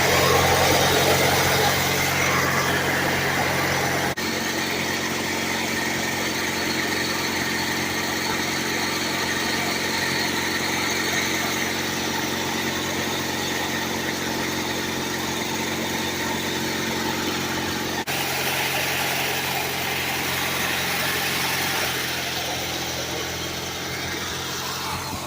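Small gasoline engine running at a steady speed. There are abrupt breaks about four seconds in and again around eighteen seconds.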